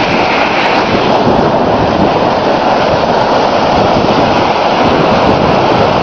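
Steady, loud rushing of wind buffeting the microphone mixed with surf, with no distinct events.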